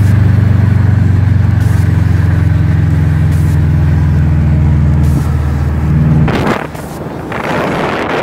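Car engine running at steady speed, heard from inside the cabin as a low even drone while the car drives along. About six seconds in it gives way to wind rushing over the microphone, with the car still moving.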